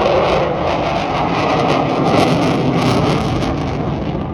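Jet aircraft flying past with a loud engine roar and crackle, easing slightly near the end.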